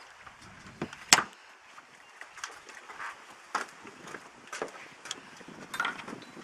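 Several sharp knocks and clunks, the loudest about a second in with a short low rumble just before it, then four or five lighter knocks spread through the rest.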